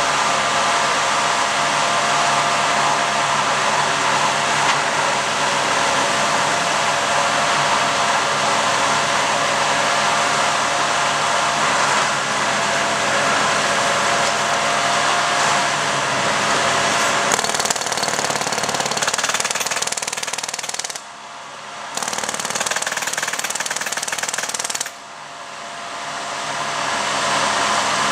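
Railroad track maintenance machinery running with a loud, steady mechanical noise. The noise drops away sharply twice in the last third, then builds back up.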